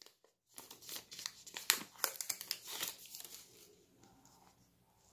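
Clear plastic protective film being pulled off a white plastic earbud charging case, crinkling and crackling in quick irregular bursts for about three seconds.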